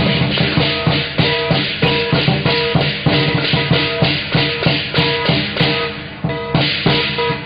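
Lion-dance percussion: a large drum beaten in a fast, steady rhythm with cymbals clashing on the beats, the cymbals getting louder near the end.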